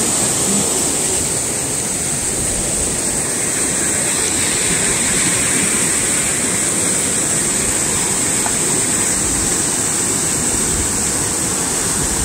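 River water rushing, a steady loud wash of noise with no breaks.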